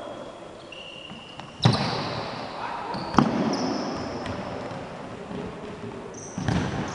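Futsal ball struck hard three times, about one and a half seconds in, just after three seconds and near the end, each hit echoing through a large gym. Short high sneaker squeaks on the wooden court come between the hits.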